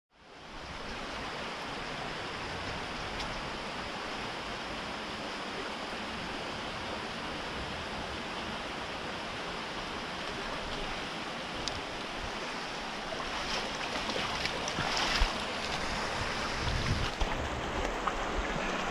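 Small mountain creek rushing steadily over rocks. Irregular splashing and knocks come near the end, as a hooked trout is brought into a landing net in the water.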